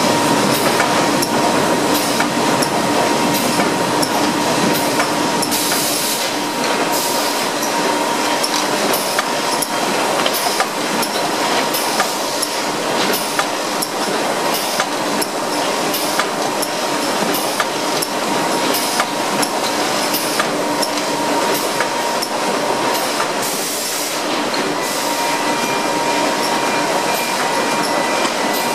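Bobst SPO 1600 autoplaten die-cutter with Roda pre-feeder running in production on corrugated board: a continuous loud mechanical clatter with repeated sharp clacks over a steady whine.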